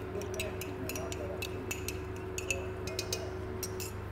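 Hot melted butter crackling and spitting in a stainless-steel pan as cream is poured in: irregular sharp pops and ticks, several a second, over a steady low hum.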